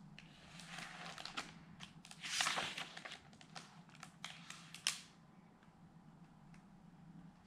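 A picture-book page being turned and laid flat: paper rustling, loudest about two and a half seconds in, mixed with several light taps and clicks of handling, settling by about five seconds in.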